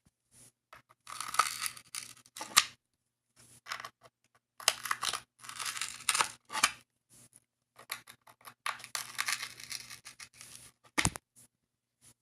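Grip tape on a skateboard deck being worked with a hand tool: three rough scraping or cutting strokes of about two seconds each, then one sharp click near the end.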